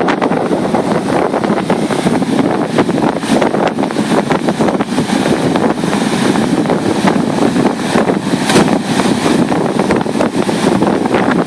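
Strong hurricane wind blowing across the microphone: a loud, continuous rushing that rises and falls in gusts, with rapid crackles as the gusts hit the mic.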